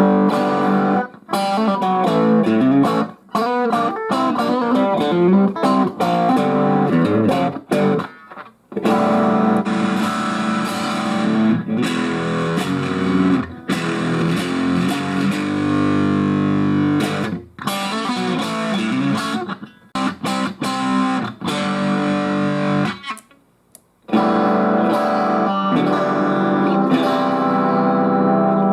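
Electric guitar played through a Fender Super Champ XD 15-watt tube amp (two 6V6GT power tubes, one 12AX7A), demonstrating its voice settings. Phrases of chords and notes break off briefly several times, with a full stop of about a second a little after 23 s.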